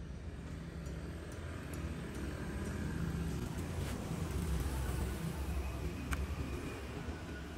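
Steady low outdoor background rumble, with a single sharp click about six seconds in.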